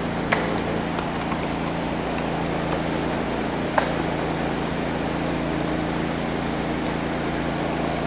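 An engine running steadily, an even low hum, with two light clicks, one just after the start and one about four seconds in.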